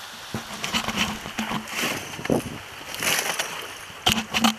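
Sea water sloshing against the hull of a small fishing boat, in uneven swells, with a few sharp knocks near the end.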